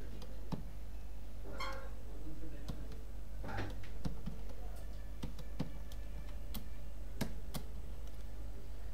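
Computer keyboard keystrokes, about ten separate clicks at an uneven, unhurried pace, over a steady low hum. Two brief, softer smeared noises come near two and three and a half seconds in.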